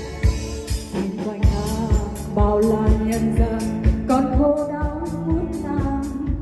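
A woman singing a song over a band accompaniment with a steady drum beat, about two beats a second.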